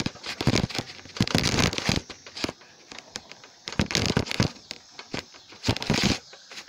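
Rustling, crackling knocks from a jostled camera in irregular bursts about once a second, as it shakes over rough grass.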